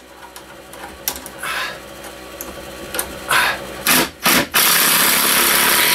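Cordless drill driving a screw into wood. There are a few short bursts, then one long run of about a second and a half near the end.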